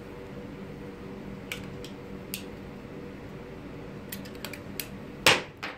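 Steady low room hum with a few scattered light clicks, and a sharper knock about five seconds in.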